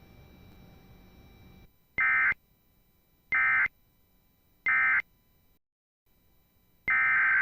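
Emergency Alert System digital data bursts from a weather radio broadcast, a harsh buzzing warble. Three short bursts about 1.3 s apart, the end-of-message code marking the close of a warning, then after a brief dropout one longer burst of about a second near the end. Faint radio hiss lies under the first second and a half.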